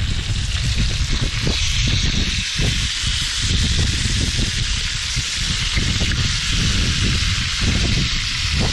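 Seafood and onions sizzling in a frying pan on a portable gas stove, stirred with a spatula, a steady hiss. Wind buffets the microphone with a gusty low rumble.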